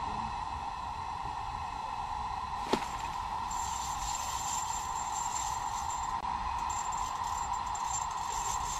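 Steady hissing rush from a portable heater running close by in a closed ice shanty. There is a single light click a little under three seconds in, and a faint high whine joins from about three and a half seconds.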